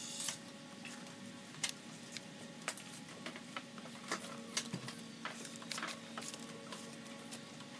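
Scattered light clicks and rustling of fabric lifting straps being pulled free from around an engine in a vehicle's engine bay, over a faint steady hum.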